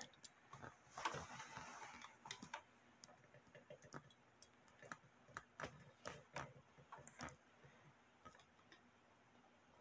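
Near silence broken by faint, irregular clicks, knocks and a short rustle: handling noise from a camera being moved and repositioned by hand.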